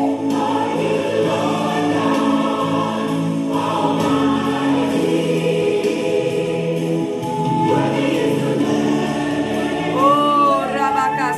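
Gospel worship song: a choir singing over instrumental accompaniment, with a lead voice sliding in pitch near the end.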